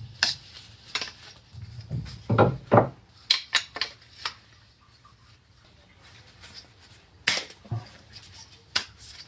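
Scattered clicks and knocks of hard parts being handled and fitted together, a part being inserted into a router hinge-cutting setup: a cluster of clicks and a couple of dull thuds a few seconds in, then single sharp clicks near the end.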